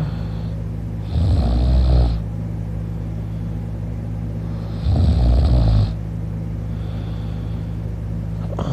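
A man snoring in his sleep, lying on his back with his mouth open: two long snores, each about a second, some four seconds apart, with shorter breath sounds at the start and near the end, over a steady low hum.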